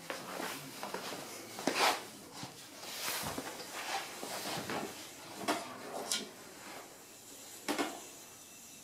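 Round wooden dog puzzle toy being worked by a dog's nose: wooden pieces sliding and knocking in irregular scrapes and clacks, the sharpest a little under two seconds in and again near the end.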